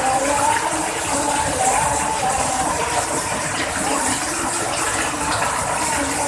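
Heavy rain falling, a dense steady hiss. Behind it a held tone slides and steps between a few pitches throughout.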